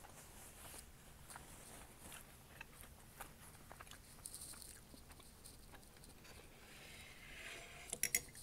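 Close-miked, quiet chewing of a mouthful of coconut cream pie: soft, moist mouth clicks and smacks. About eight seconds in, a brief rustle and a quick run of sharp clicks, the loudest sounds, as the fork and plate are handled.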